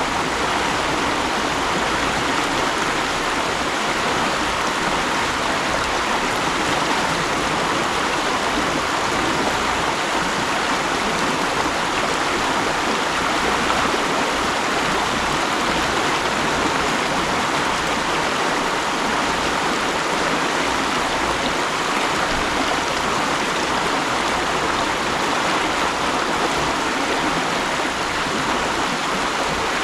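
Mountain stream flowing over rocks: a steady rushing and babbling of water, even throughout.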